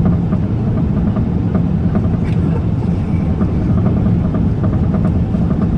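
Aircraft jet engines running with a steady, loud low rumble.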